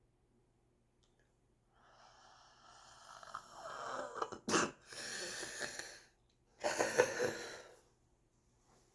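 A smoker's raspy, congested breathing that builds over a couple of seconds, broken by a sharp cough about four and a half seconds in, then a louder hacking cough about seven seconds in. The uploader guesses it is what chronic bronchitis sounds like.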